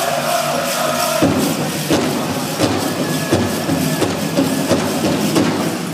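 Powwow drum struck in a steady beat, about three strikes every two seconds, under a group of singers whose high voices lead off strongly in the first second. The tin cones on the jingle dresses rattle in a shimmer over the song.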